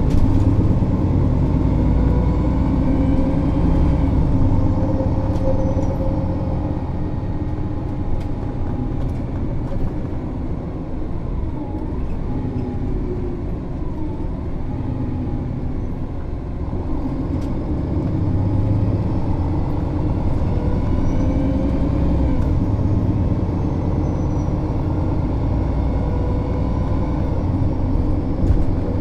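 MAN Lion's City NÜ 273 city bus with a Voith automatic gearbox, its diesel engine and drivetrain running under changing load. The pitch falls about four seconds in, the sound eases through the middle, and it builds again from about eighteen seconds in.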